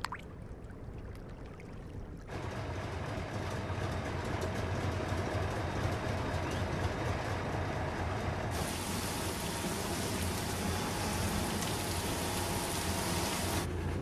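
Large salt-harvesting machine running with a steady low hum, with water pouring and splashing. The sound starts suddenly about two seconds in and grows brighter and hissier about halfway through.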